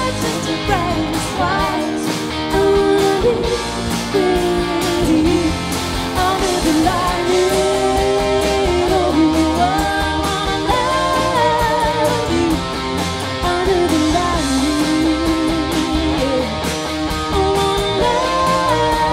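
Live band performance: a woman singing over a strummed acoustic guitar, electric bass and a drum kit with cymbals.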